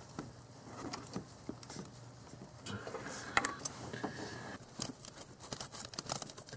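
Faint scattered clicks and rustling of hands handling wiring and hoses in an engine bay, with a few sharper clicks about three and a half seconds in and again near the end.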